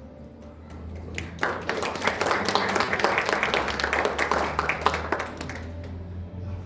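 Audience applauding, starting about a second and a half in and dying away near the end, over a steady low hum.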